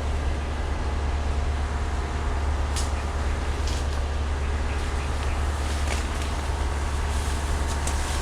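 Steady low rumble, with a few faint short clicks and rustles over it.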